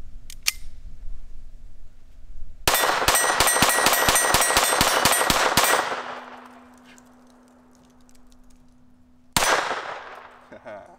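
Walther PPK/S .22 LR pistol fired unsuppressed in a rapid string of shots lasting about three seconds, then one more sharp bang about three and a half seconds later.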